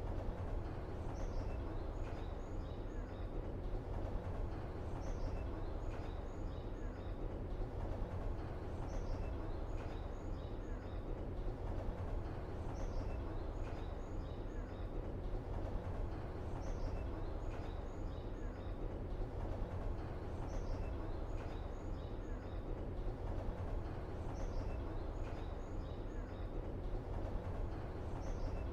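Steady low background rumble with small high bird-like chirps that recur about every four seconds, one short ambience loop repeating over and over.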